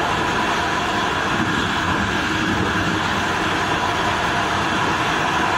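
Steady running noise of a train moving at speed, heard from the front cab: an even rushing rumble with a faint steady whine over it.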